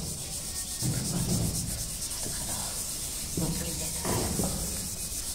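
A cloth pad with wet Pitambari powder scrubbed over a glossy ceramic floor tile, a gritty rubbing that swells with the harder strokes, as the abrasive powder polishes out surface scratches.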